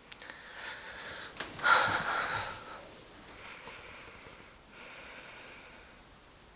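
A man breathing heavily close to the microphone, a series of noisy breaths with the loudest about one and a half seconds in and softer ones after.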